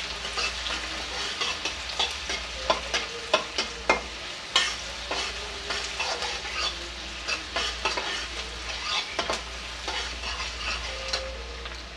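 Sliced onions frying in hot mustard oil in a metal kadhai, sizzling steadily as they brown to dark golden, while a metal spatula stirs them and scrapes and clicks against the pan many times at an irregular pace.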